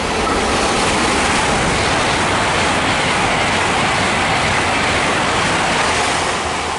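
GWR Class 800 intercity express train passing through at speed: a loud, steady rush of wheel and air noise that builds at the start and begins to die away near the end.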